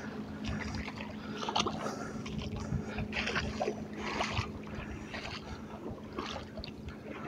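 Small waves lapping and splashing at the lake's edge in irregular bursts, over a faint steady low hum.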